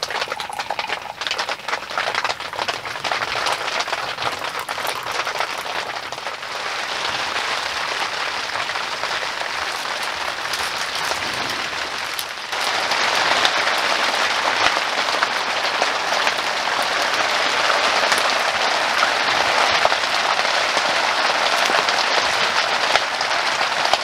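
Heavy rain pattering on a tent's fabric, a dense steady patter of drops that gets louder about halfway through.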